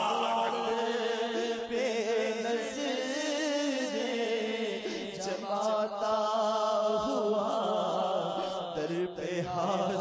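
Urdu naat: a solo voice chanting a slow devotional melody with wavering, drawn-out notes over a steady held low tone.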